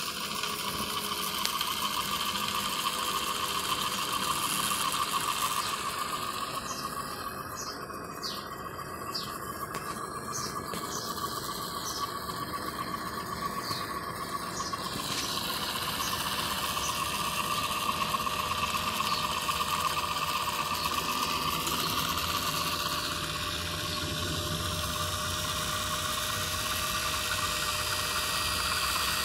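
Kodascope Model C 16 mm film projector running: its motor and film-drive mechanism give a fast, even clatter over a steady hum.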